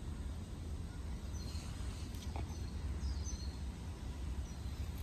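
Orange tabby cat purring, a steady low rumble, with faint bird chirps in the background.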